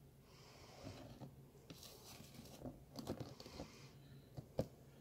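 Faint handling sounds of a tarantula being rehoused: paper rustling and small clicks and taps against a clear plastic tub, with one sharper click about four and a half seconds in.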